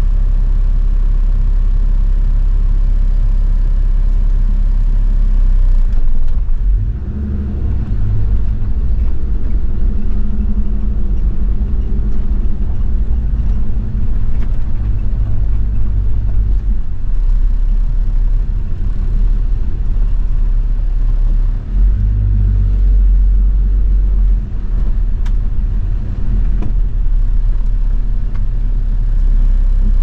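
Toyota Land Cruiser 70's 1HZ inline-six diesel driving on a dirt road: a steady low engine drone and tyre rumble that swells and dips a few times, with occasional light knocks.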